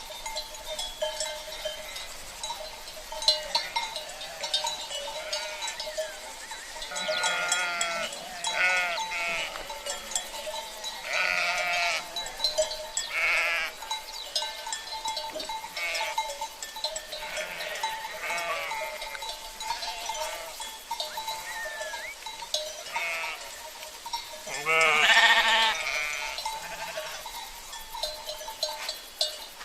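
Flock of sheep bleating again and again, with the loudest bleat about twenty-five seconds in. Cowbells (cencerros) clink and ring steadily underneath.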